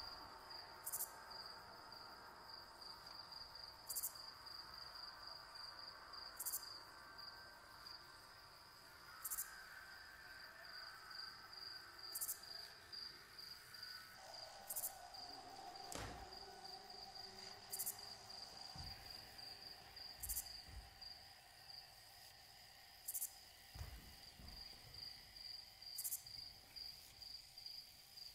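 Crickets chirping steadily in a fast, even trill, with a higher, shorter call repeating every few seconds and faint sustained tones underneath. A single thud about sixteen seconds in.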